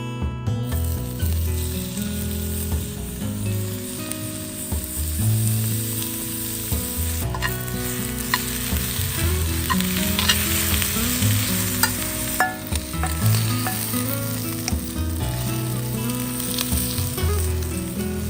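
Food sizzling and frying in a hot pan, with a steady hiss and occasional sharp clicks and scrapes of a utensil stirring it.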